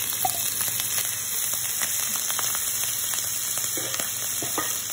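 Pieces of smoked sausage frying in hot olive oil with minced garlic in a non-stick pan: a steady sizzling hiss with scattered small pops.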